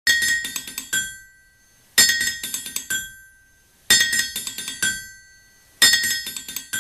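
Closing theme music played on ringing metal: a quick run of five or six clinking strikes about every two seconds, each run dying away before the next.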